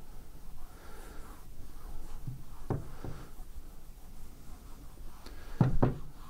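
Cloth rag rubbing back and forth over a metal weld test plate: the solvent-dampened wipe that clears excess penetrant off before the developer is applied. A few dull knocks, the loudest pair near the end.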